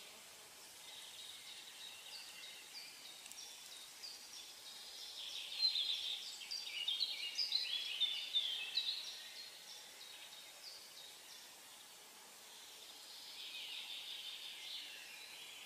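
Small songbirds singing and chirping, a dense run of quick high notes loudest in the middle, with more chirping near the end, over a faint outdoor background hiss.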